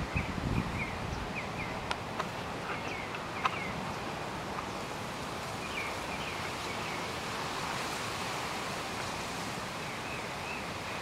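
Small birds chirping in short repeated clusters over a steady rush of outdoor background noise, with a low thump right at the start and a few faint clicks.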